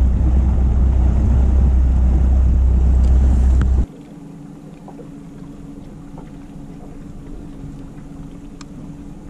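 Bass boat's outboard motor running just over idle speed, heard from the helm. A loud low rumble for about four seconds, then a sudden drop to a quieter steady hum with a low drone.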